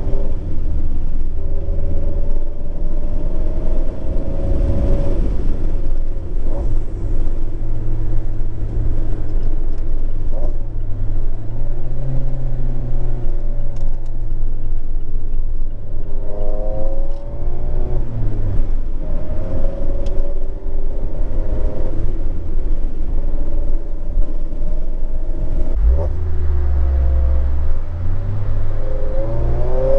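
Modified Mazda MX-5 (ND) 2.0-litre four-cylinder running through a Skunk2 4-1 header and Remark cat-back exhaust at part throttle, heard from inside the open cabin. The engine note is steady, and its pitch rises and falls a few times.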